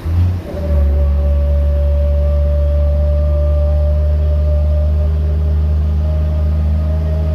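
City bus rear differential whining with a steady high tone over the bus's deep running drone; the whine climbs slightly in pitch near the end as the bus picks up speed.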